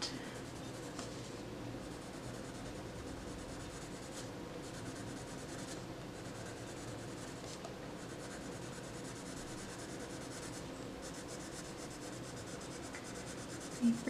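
Prismacolor colored pencil shading on coloring-book paper: a soft, steady scratching of the pencil tip rubbing over the paper as blue is layered over indigo and faded out.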